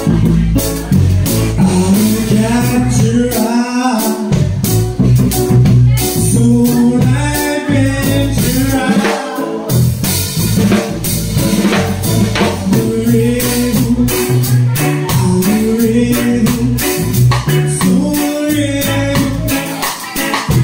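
Live band playing a song: a singer over stage keyboard, electric bass guitar and drum kit with cymbals.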